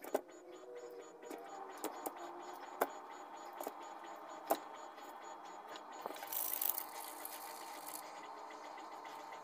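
Sharp, scattered clicks of steel pliers gripping and bending a thin umbrella steel rod into a crankshaft, with the rod tapping on the work mat and a short scraping hiss about six seconds in. Faint background music underneath.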